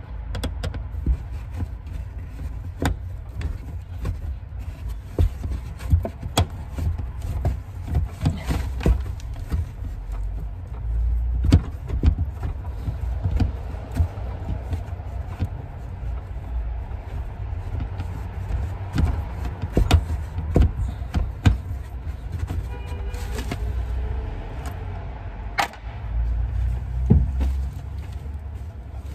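Screwdriver turning out the screws of a sheet-metal fuel pump access cover in a car's trunk floor: scattered clicks and metal scrapes over a steady low rumble.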